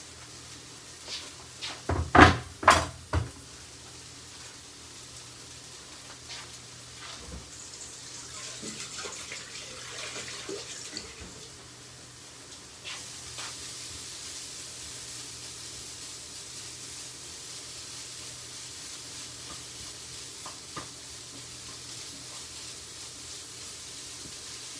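Cauliflower rice frying in a pan, a steady sizzling hiss that comes in fully about halfway through. Near the start, a quick run of loud knocks as things are set down on the wooden worktop.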